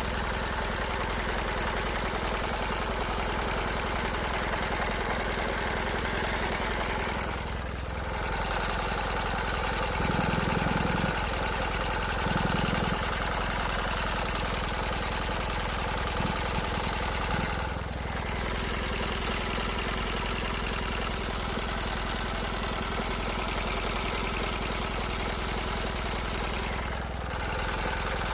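Kawasaki W-series air-cooled parallel-twin motorcycle engine idling steadily, with two brief swells about ten and twelve seconds in. It is making an abnormal noise that the owner has noticed, though he says the engine itself is in good health.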